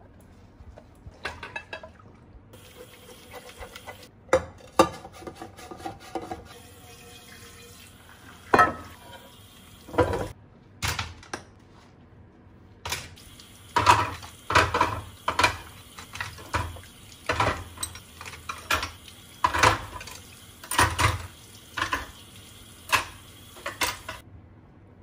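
Dishes being washed by hand in a kitchen sink: plates and utensils clinking and knocking against each other and the sink, with water running and splashing. The knocks come more often in the second half.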